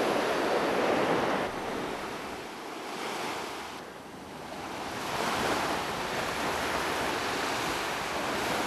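Sea waves washing onto a pebble beach: a surge at the start that ebbs away by about four seconds in, then builds again.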